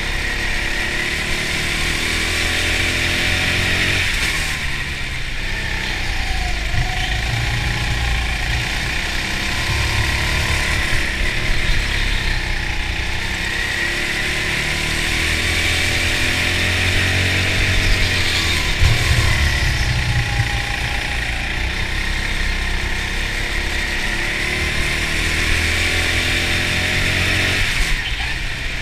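Go-kart driven hard from on board, its motor note rising and falling as it accelerates out of corners and slows into them.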